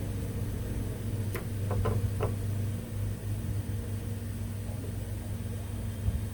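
Steady low hum of bench equipment with a cluster of four small, sharp clicks about a second and a half in, as small tools tap against the board during desoldering of a burnt connector.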